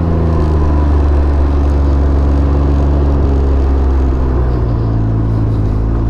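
Can-Am Ryker 900's three-cylinder Rotax engine running at a low, steady speed as the three-wheeler rolls slowly along, its pitch shifting slightly about four seconds in.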